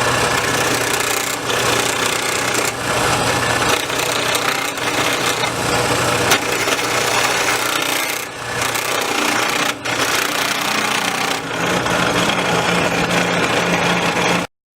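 Wood lathe running, its motor humming steadily under the rasping hiss of a turning tool cutting into the spinning wood, with a couple of brief lulls. The sound cuts off suddenly near the end.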